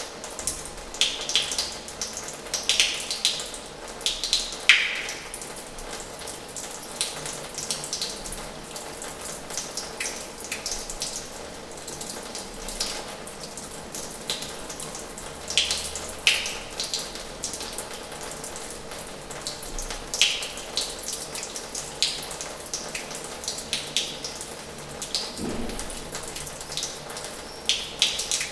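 Water running from the tap of an old washhouse and splashing, a steady rushing with irregular louder splashes and drips scattered through it.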